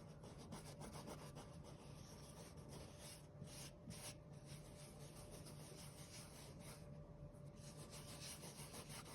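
Faint rubbing and scrubbing of bare hands working leftover slime off a wall, over a faint steady hum.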